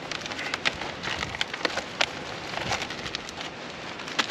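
Foil food pouch crinkling as it is torn open and handled: a rapid, irregular scatter of small crackles.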